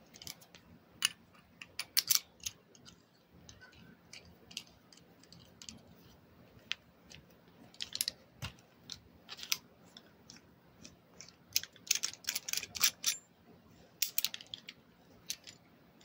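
Steel Hiatt 104 Darby handcuffs and their screw key handled at close range: irregular sharp metal clicks, taps and small scrapes coming in several clusters as the key is fitted into the end of the cuff's barrel and taken out again.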